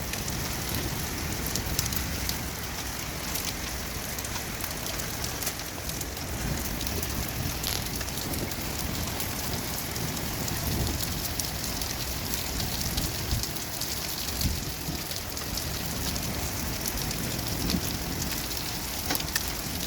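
Ice rain (hail) falling steadily, a dense hiss of rain with many sharp ticks of ice striking.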